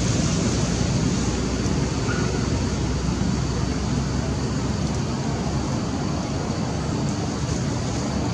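Steady low rushing outdoor noise with no distinct events.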